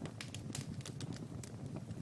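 Wood fire crackling: frequent irregular sharp pops and snaps over a low, steady rumble of the flames.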